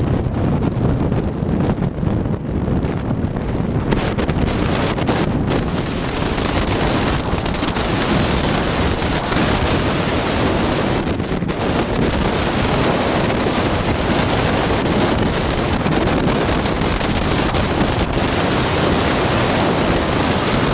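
Strong storm wind buffeting the microphone over heavy, wind-driven surf: a continuous loud rush of noise, with low gusty rumbles in the first few seconds.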